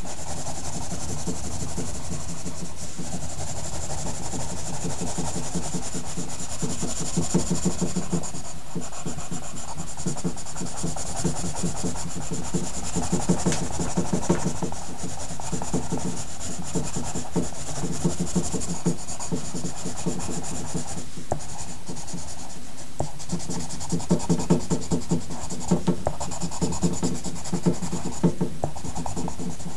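Pencil scratching on paper in quick repeated shading strokes.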